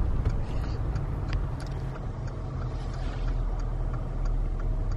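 Steady low rumble of a car's engine and road noise heard from inside the cabin while driving slowly, with a few faint ticks.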